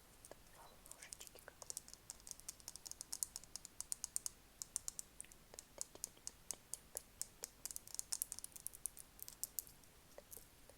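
Close-miked ASMR tapping: quick, irregular, crisp little clicks, several a second, thickest through the middle and again near the end.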